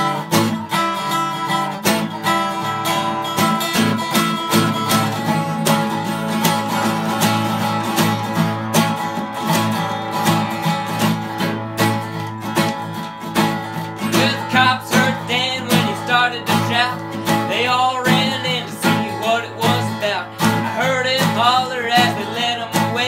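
Instrumental break on two acoustic guitars, one a resonator guitar: a steady strummed rhythm with a lead picked over it. In the second half the lead turns to bent, wavering notes.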